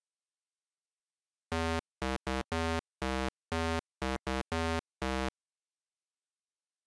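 A short 8-bit style synthesizer jingle: about ten quick notes in a bouncy rhythm, starting about a second and a half in and stopping a little after five seconds.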